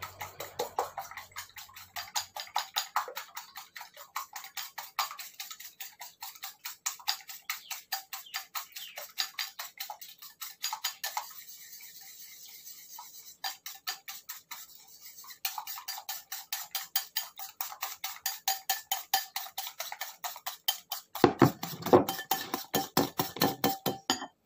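A spoon beating eggs against a ceramic bowl: a quick, even run of clinking strokes, several a second. The strokes pause for about two seconds in the middle and come harder near the end.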